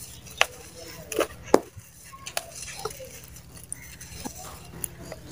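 Dry mud balls crunched and crumbled by hand in loose powdery dirt: a soft gritty rustle of dirt sifting through fingers, broken by several sharp crunchy cracks, the loudest about a second and a half in.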